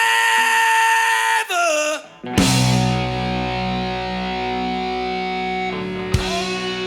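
Live blues-rock band playing: a distorted electric guitar holds a ringing chord, then slides down in pitch about a second and a half in. After a brief break the band comes back in on a loud struck chord, with bass notes sustaining underneath.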